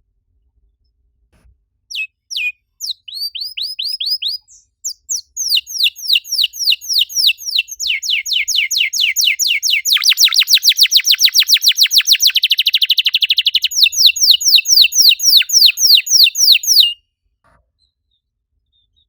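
Domestic canary singing a long song of fast repeated falling notes, running into a dense rapid trill in the middle. It starts about two seconds in and stops suddenly near the end.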